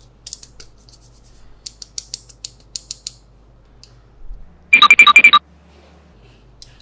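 Light clicks and ticks of plastic paintbrushes being handled, then about five seconds in a loud electronic ringtone-like sound effect: a rapid trill of beeps lasting under a second.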